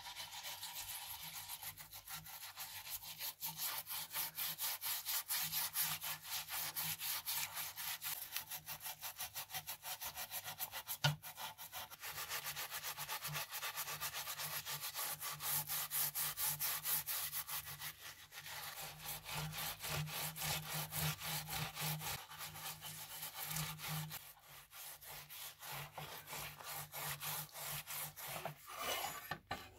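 Metal scouring pad scrubbing a rusty steel axe head in a foamy liquid bath, in rapid back-and-forth strokes that pause briefly now and then, working off the loosened rust. A single sharp knock about a third of the way through.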